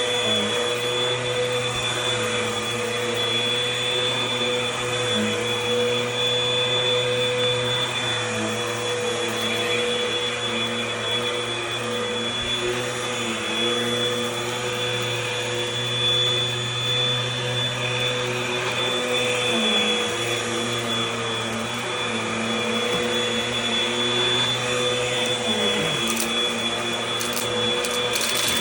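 Eureka Airspeed Gold upright vacuum cleaner running steadily while vacuuming, its motor giving a constant high whine over a steady hum. The level dips slightly now and then, and there are a few short ticks near the end.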